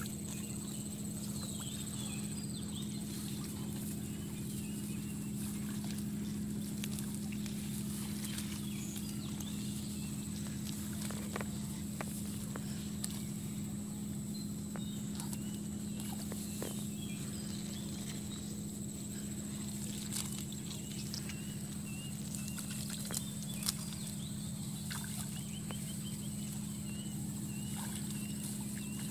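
Outdoor ambience at a flooded rice paddy: a steady low hum with a thin high whine above it, short faint chirps scattered through, and a few light clicks.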